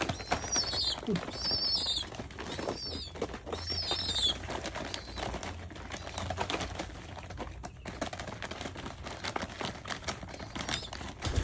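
Pigeon pecking feed from a person's hand: rapid, irregular clicks of its beak, with wing flutters. Several high, wavering squeaks come in the first few seconds.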